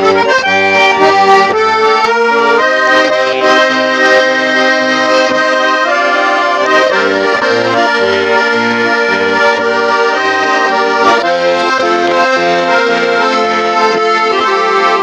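Instrumental break of a gypsy-style Russian song: an accordion plays a melody over a steady rhythmic bass line, with no singing.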